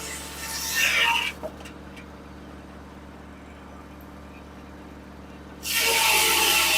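A 1950 Corley sawmill running with a steady hum underneath. A loud rasping cut stops abruptly about a second in, and a new cut starts suddenly near the end as the saw bites into the log again.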